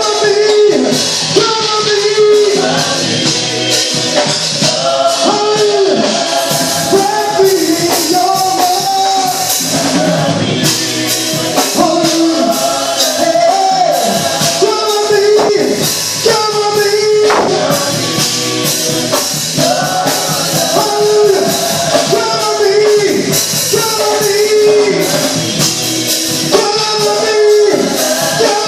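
A church praise team singing a live gospel song together over instrumental backing, with steady percussion strikes throughout.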